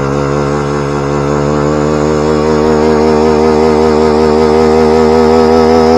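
Yamaha R15 motorcycle engine held at high, steady revs during a burnout, its note wavering only slightly and growing a little louder partway through.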